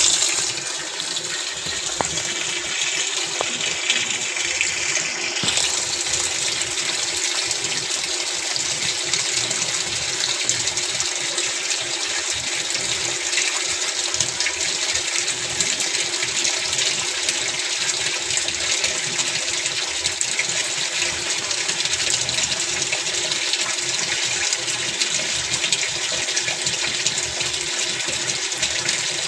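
Water gushing steadily into and around the tub of a Godrej Eon Allure Classic 7.5 kg washing machine during a test run after its gearbox has been replaced.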